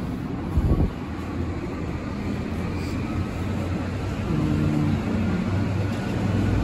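Stainless-steel elevator doors sliding shut with a low motor hum about four seconds in, over the steady low rumble of a parking garage. A short thump comes about half a second in.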